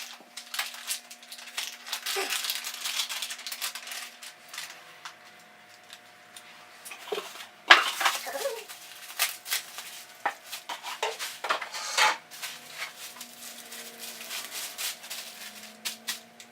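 Boxes, packaging and electronic parts being handled: irregular clicks, knocks and clatter as pieces are picked up and set down, with a stretch of rustling packaging about two seconds in, over a faint steady hum.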